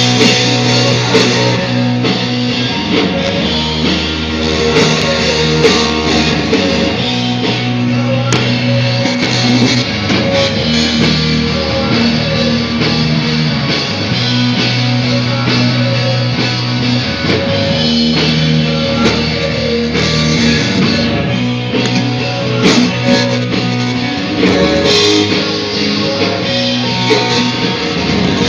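Rock band playing live: electric guitar with a drum kit, held notes and chords with sharp drum hits throughout.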